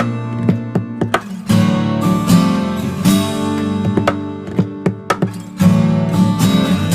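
Background music: strummed and picked acoustic guitar.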